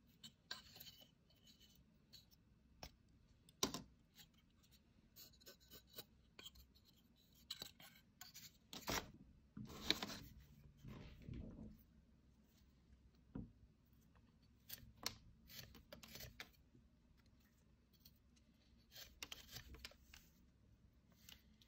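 Small wooden parts and strips of wood being handled and set down on a paper-covered table: scattered sharp clicks, taps and short scrapes. Near the end, a knife shaving a small block of wood in a few short scraping strokes.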